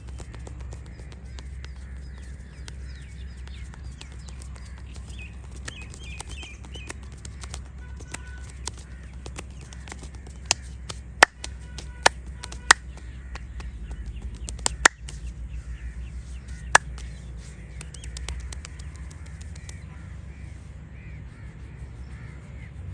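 A quick run of seven sharp, loud cracks from the head massage, starting about ten seconds in and spread over roughly six seconds. Crows caw now and then over a steady low background rumble.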